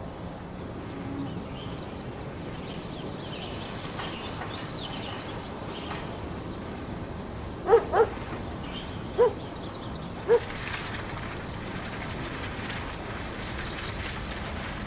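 An animal calling four times in short, loud bursts, two close together and then two more spaced about a second apart, over a steady background hiss.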